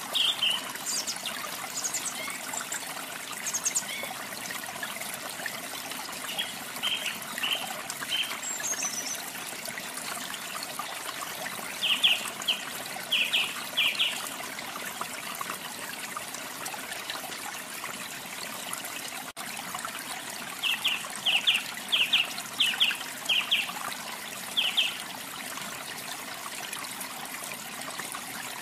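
Steady rush of running water, with a small songbird chirping over it in bunches of short notes, the loudest bunches about twelve seconds in and again about twenty-one seconds in.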